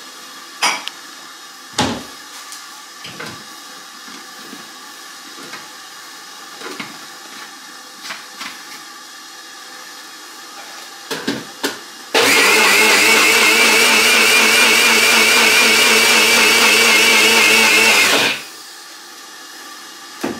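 A few light clicks and knocks as the blender cup is handled. About twelve seconds in, a small electric blender runs steadily for about six seconds, grinding garlic with a little water, then cuts off suddenly.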